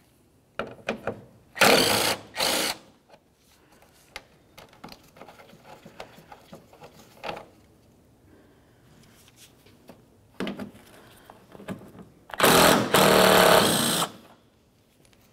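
Cordless drill spinning an 8 mm socket to back out headlight mounting bolts: two short runs about two seconds in, light clicks of the loosened bolt being handled in the middle, and a longer, loudest run of about a second and a half near the end.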